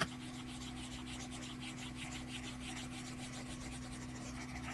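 Scribbling sound effect of drawing on paper: a rapid train of short, scratchy strokes over a faint steady low hum, with a click at the start.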